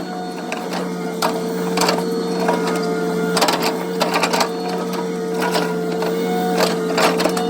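Hitachi excavator running steadily with a constant hum, while its pakura grapple attachment crunches material, giving irregular sharp cracks and snaps.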